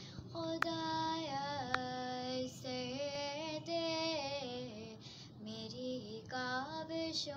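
A young girl singing an Urdu dua (devotional prayer song) solo, drawing out long held notes that slide between pitches. Two short clicks come about half a second and a second and a half in.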